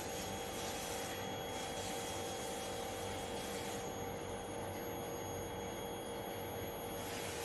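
Steady machinery hum with an even hiss and a few constant tones.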